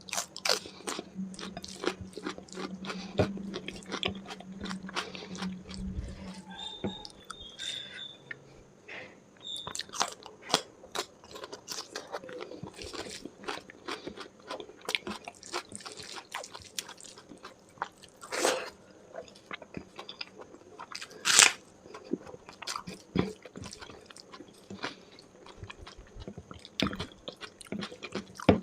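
Close-miked eating of a chicken curry and rice meal with chili and onion: a steady run of crunchy bites, wet chewing and small mouth clicks, with two louder crunches in the second half.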